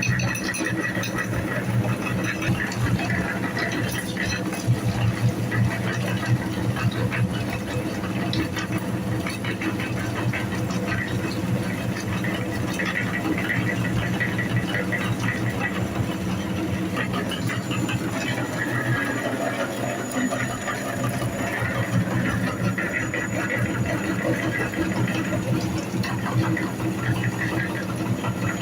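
Electric meat grinder running steadily with a constant motor hum, with fine rattling and crackling as it grinds jelly candy.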